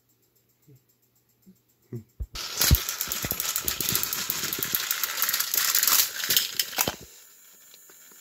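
Loud clattering and rattling of hard plastic toy trains and track pieces, starting about two seconds in and dropping to a faint steady hiss about seven seconds in.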